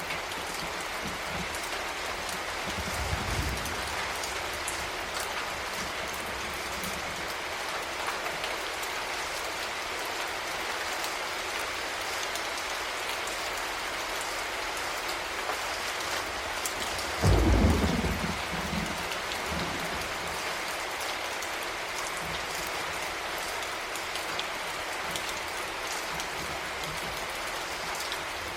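Steady hiss of rain. A low rumble comes about three seconds in, and a louder one around seventeen seconds in.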